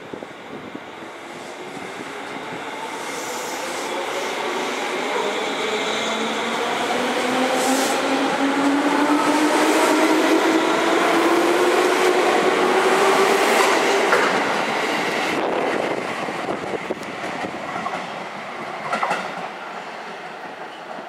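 JR West 205 series electric train pulling away from the platform: its motor whine climbs steadily in pitch as it accelerates. Wheels click over rail joints as the cars pass, loudest midway, and the sound fades as the train draws off.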